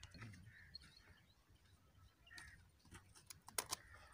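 Near silence with a few faint clicks and taps from hands working on a flat drive belt, most of them bunched together about three and a half seconds in.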